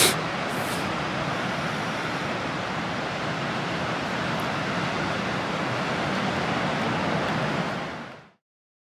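Steady rush of surf breaking on a beach, mixed with wind on the microphone. A short sharp click right at the start and a fainter one just after, and the sound fades out near the end.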